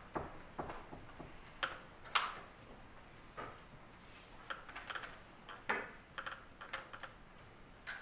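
Scattered light clicks and paper rustles, as of pages being handled and leafed through, irregular and unhurried, with a louder rustle about two seconds in and another near six seconds.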